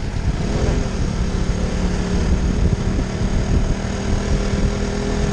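A sport motorcycle's engine runs steadily at cruising speed, with a constant hum under heavy wind rush and buffeting on the rider-mounted microphone.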